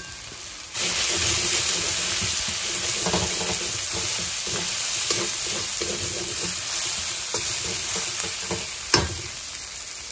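Onion, ginger-garlic paste and Kashmiri chilli powder sizzling in oil in a metal kadai. The sizzle rises sharply about a second in. A metal spatula scrapes and stirs the masala as it fries down until the oil separates, and there is one sharp knock near the end.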